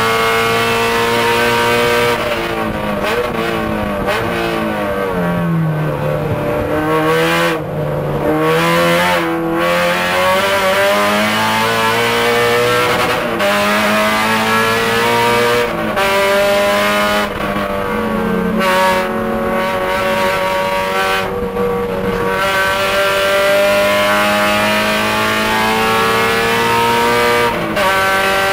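A Honda K24A2 four-cylinder race engine in a 1999 Civic Si, heard from inside the cabin and worked hard. Its pitch falls for the first several seconds as the car slows, then it climbs again and again, with brief breaks between the climbs at the gear changes.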